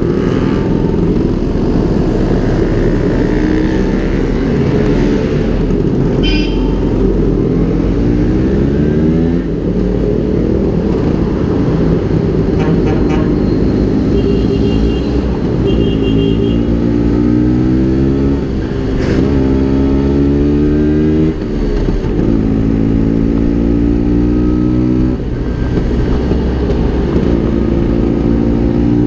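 Vespa PX150's single-cylinder two-stroke engine through an aftermarket SIP Road 2.0 exhaust, under way and pulling through its gears: the revs climb in each gear and drop at each shift, several times over. A few short high beeps come from the traffic around it.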